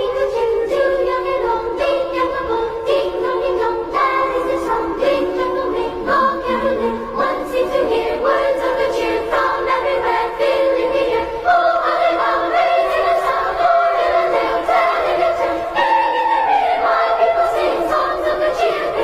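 Music with voices singing, choir-like; the singing goes on all through.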